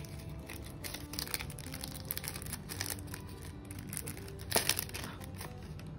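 Clear plastic blister packaging crinkling and crackling as it is handled, louder for a moment about four and a half seconds in. Soft background music plays underneath.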